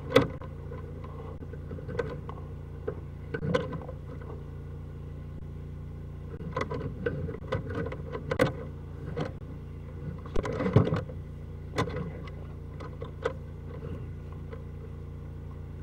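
A steady engine drone under irregular scrapes and rattles as a drain inspection camera's push cable is drawn back out of a stormwater pipe.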